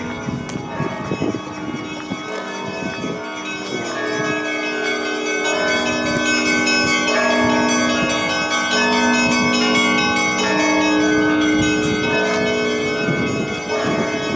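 Russian Orthodox church bells ringing: several bells sounding together, their long tones overlapping and shifting. It grows louder about four seconds in.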